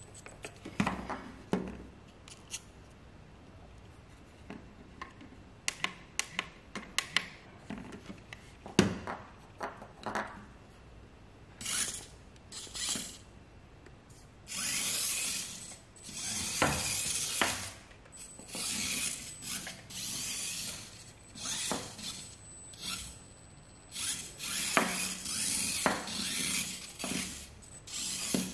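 Tiny motor and gearbox of a 1:64 micro RC car (Q25 Jeep) whirring in repeated short bursts of a second or two as the car drives and stops, a high-pitched whir. Before the driving starts there is a string of light clicks and taps.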